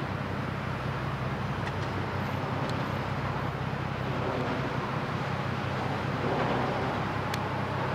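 Steady low engine drone of the kind heard from diesel vessels and traffic across open water, with a constant hum under it. A faint sharp click about seven seconds in.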